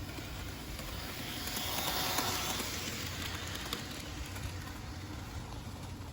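Bachmann HO scale model train running on its track: a steady whir and rattle of the small electric locomotive and its cars, swelling louder about two seconds in as it passes closest, with a few faint clicks.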